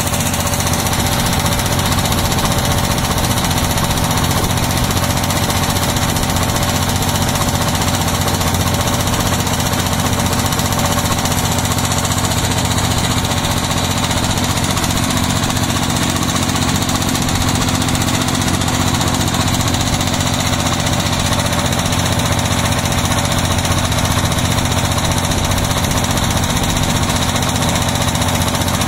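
Inboard engine of a motorised wooden river boat running steadily under way, with a fast, even beat.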